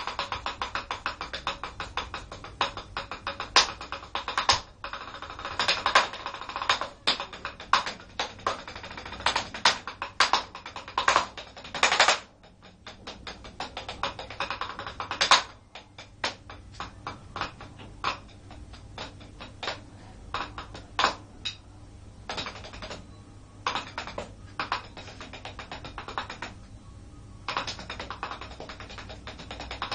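Drumsticks playing fast sticking patterns on a rubber practice-pad kit: dense, rapid taps with louder accented strokes, easing off briefly a few times.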